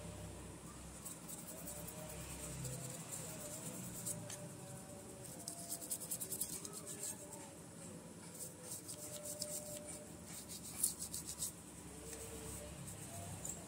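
Laptop cooling parts being scrubbed clean by hand: bursts of light, rapid scratchy rubbing, heaviest about halfway through and again late on.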